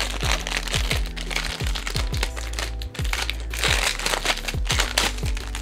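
Plastic packaging crinkling in a few short spells as a phone case is taken out of its package, over background music with a steady beat.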